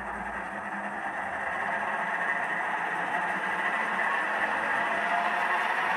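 A steady, hissing drone that slowly swells louder: a tension-building sound effect of the kind laid under a horror-film scene.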